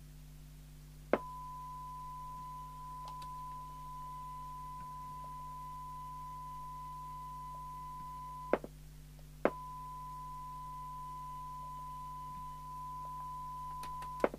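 Steady single-pitch test tone from a signal generator, heard through a Harry Moss PT325 CB radio's speaker. It switches in with a click about a second in, drops out with a click for about a second past the middle, comes back, and cuts off with clicks near the end. This is the receiver's squelch opening and closing while it is set to open at 100 microvolts.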